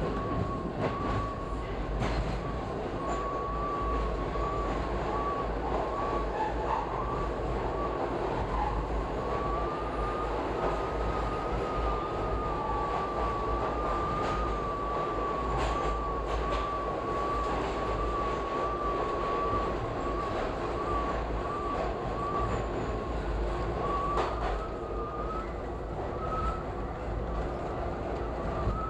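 Toronto subway train running through a tunnel: a steady rumble of wheels on rail with a high, slightly wavering whine held throughout, and a few sharp clicks from the track.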